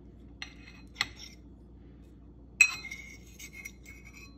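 Metal fork tapping and clinking against a plate: two light taps, then a louder clink about two and a half seconds in that rings on briefly.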